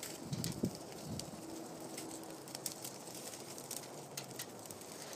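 Freshly lit brush and kindling fire crackling and popping in the chimney of a pit oven, with scattered sharp snaps. A dove coos low in the background.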